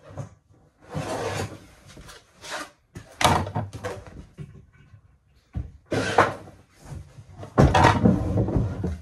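Kitchen cupboards and drawers being opened and shut and things moved about inside them, in about six short bursts of knocking and clatter.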